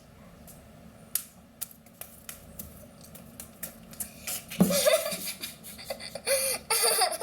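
Irregular quick hand claps and slaps of two children doing a clapping handshake routine, with bursts of child laughter about two-thirds of the way through and near the end.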